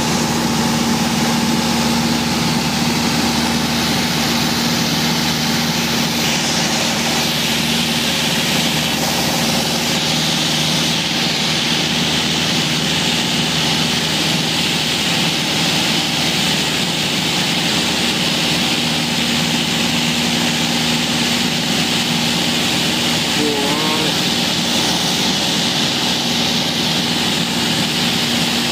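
Steady cabin drone of a small propeller aircraft in flight: the piston engine and propeller run at a constant pitch, heard from inside the cabin.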